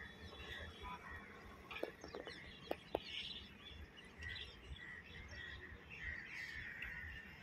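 Birds chirping and calling repeatedly, with a few sharp short notes about two to three seconds in, over a faint low rumble.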